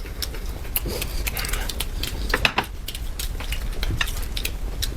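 Scattered light clicks and taps of tableware and eating at a table, over a low steady hum.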